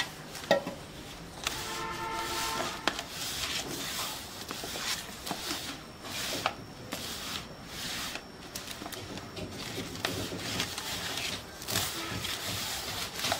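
Hands mixing and kneading wheat-flour (atta) dough in a steel plate: irregular rubbing and scraping, with a few sharp knocks against the metal. A brief steady tone sounds about two seconds in.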